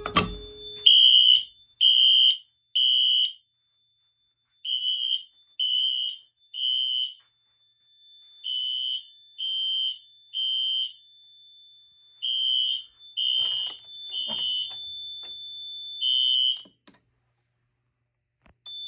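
Pull station pulled with a sharp click, then a Siemens ZH-W fire alarm horn (a rebranded Wheelock ZNS) sounding the temporal-three evacuation pattern: three blasts, a pause, repeated four times. A steady high electronic tone runs under it. Both stop about three-quarters of the way through.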